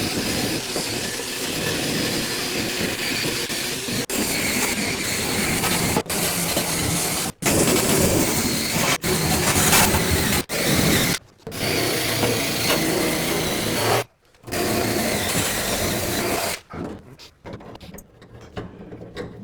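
Handheld power tool abrading body filler on a Land Rover Series 3 rear tub: a steady harsh rasp that cuts out briefly a few times and stops about three-quarters of the way through.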